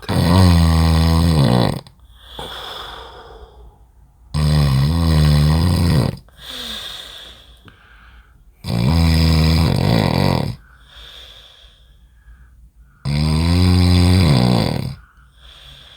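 A man snoring loudly in deep sleep: four long snores about four seconds apart, each followed by a quieter breath.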